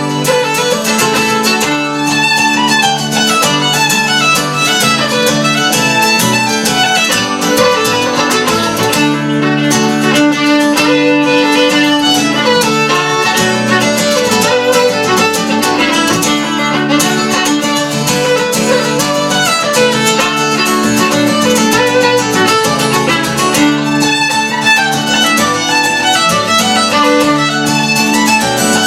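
Fiddle and guitar playing a lively traditional tune together, the fiddle carrying a fast melody over guitar accompaniment.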